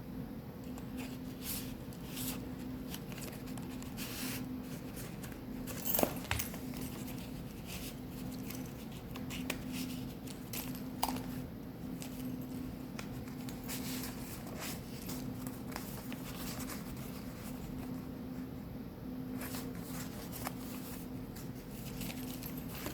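Paper pages of a handmade junk journal being turned and handled: scattered soft rustles and light taps, the sharpest about six seconds in, over a steady low hum.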